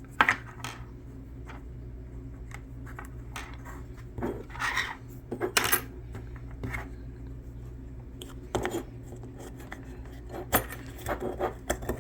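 Small metal parts of a manual 4x4 locking hub clinking and clicking as they are handled and fitted together: a dozen separate clicks scattered through, with a couple of short scraping sounds, the busiest cluster near the end.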